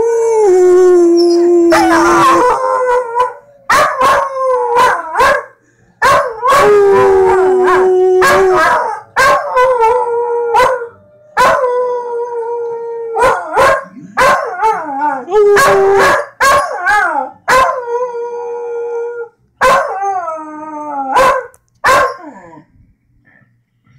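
Dachshund howling: a long run of drawn-out howls mixed with short barks, each call starting sharply. The howling stops about 22 seconds in.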